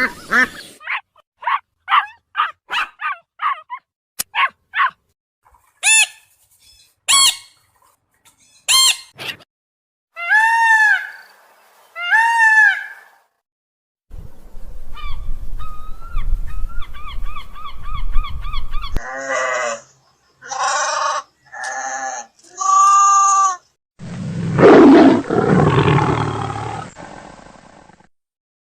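A string of different animal calls cut one after another: a run of quick short chirps, then a few longer arched calls, then four pitched calls, and a loud rough call near the end.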